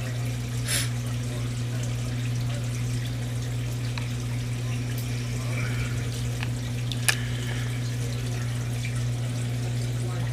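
Steady hum and water trickle of running reef-aquarium equipment (pumps and circulating water), with a sharp click about seven seconds in.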